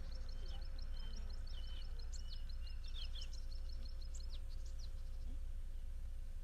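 Small birds chirping: a quick run of short high notes with scattered downward-sweeping calls, fading after about four seconds, over a steady background hum.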